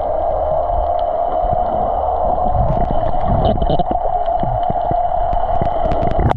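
Underwater noise picked up by a camera beneath the surface: a steady droning hum with gurgling water and small clicks, changing abruptly near the end.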